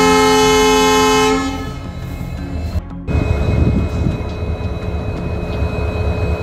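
Diesel locomotive horn (WDG4D locomotive) sounding a long, loud multi-note chord that cuts off about a second and a half in. After a short break, the low rumble of the locomotive's engine and its wheels on the track as the train rolls slowly along.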